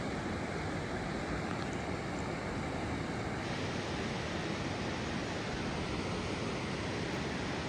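Steady rushing roar of Running Eagle Falls, a waterfall pouring down a rock face, its sound shifting slightly about three and a half seconds in.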